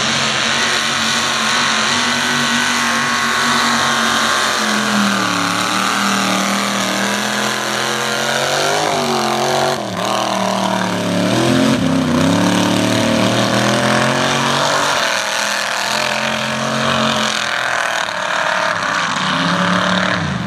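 Mud bog truck engine revving hard through a mud pit, its pitch climbing and dropping several times, over a steady rush of spinning tires throwing mud.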